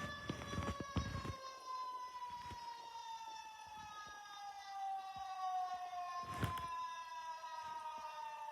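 A warning siren sounding as a chord of several tones that slides slowly down in pitch, like a siren winding down. A few short knocks come near the start and again about two-thirds of the way through.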